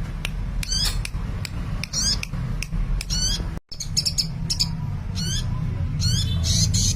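A sunbird (Indonesian 'kolibri') singing: a run of short, high-pitched chirps with quick pitch glides, several a second, broken by a brief gap a little past halfway. A steady low hum runs underneath.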